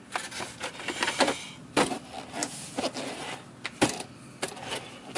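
Plastic parts of a Miele S500-series vacuum cleaner being handled on the bench: scattered clicks and knocks, the two loudest about two seconds apart in the middle, and a brief rubbing sound about a second in.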